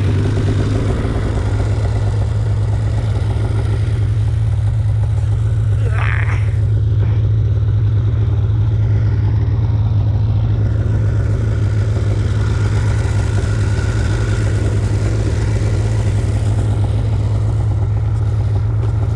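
Polaris snowmobile engine running at a steady, unchanging pitch, with a short hiss about six seconds in.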